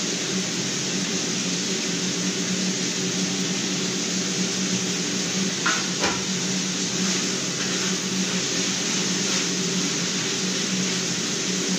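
Steady whoosh of a running fan with a low hum underneath, and two short knocks of kitchen things about six seconds in.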